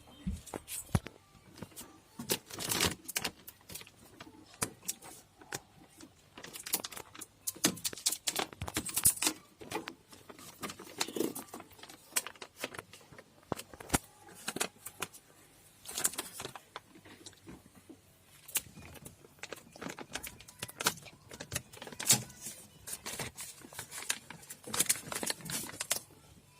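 Irregular clicks, taps and short rattles of small plastic and metal parts being handled inside a Maruti Suzuki Alto's door, around the loose door-pad clips blamed for the door's rattle.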